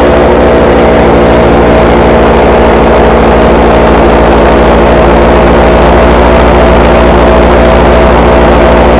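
Paramotor engine and propeller running steadily at cruising power in flight, very loud and close, with an even pitch that does not change.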